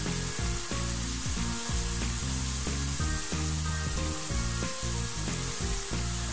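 Thin potato slices deep-frying in hot oil in a wok: a steady sizzle and bubbling of the oil. The chips are at the end of frying, crisp and ready to come out.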